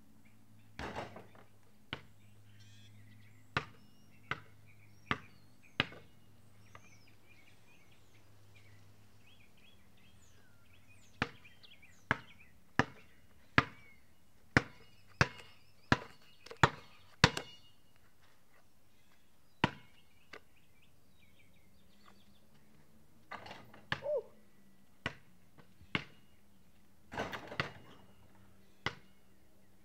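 Basketball bouncing on a concrete driveway: scattered single bounces, then a quick run of dribbles about every 0.6 s in the middle, and a flurry of bounces near the end. Birds chirp faintly in the first part.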